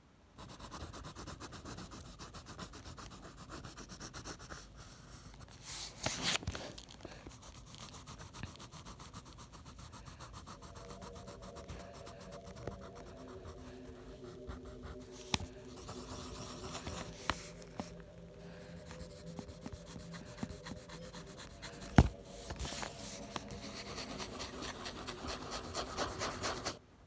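Graphite pencil scratching on paper in quick, repeated shading strokes. A single sharp tap comes about five seconds before the end, and the sound cuts off suddenly at the end.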